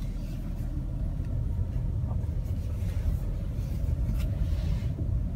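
Volkswagen car driving slowly, heard from inside the cabin as a steady low rumble of engine and tyres.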